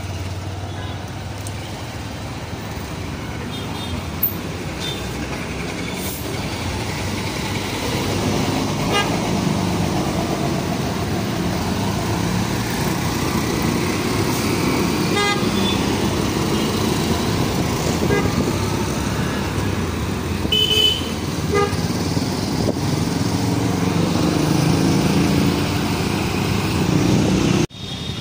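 City traffic heard from a moving motorcycle: the bike's engine and wind noise run steadily while other vehicles' horns toot briefly several times. The sound cuts out for a moment near the end.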